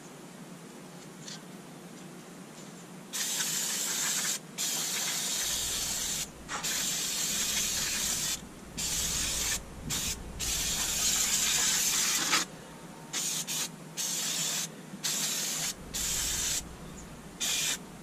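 Aerosol spray can being sprayed in a string of bursts starting about three seconds in: several long sprays of one to two seconds each, then shorter, quicker squirts near the end.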